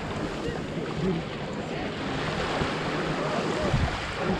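Steady rushing outdoor noise with faint voices mixed in.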